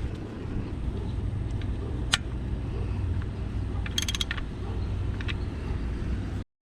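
Hand tools clicking and rattling against metal while the oil filter is being changed: one sharp click, then a quick burst of clicks a couple of seconds later, over a steady low rumble of wind on the microphone.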